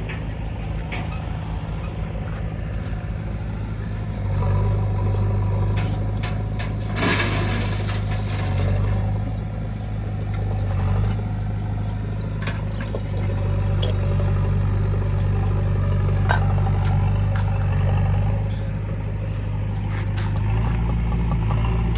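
Diesel engine of heavy machinery running steadily at low speed, its note rising a little about four seconds in and again near the end. A brief hiss about seven seconds in and a few sharp knocks.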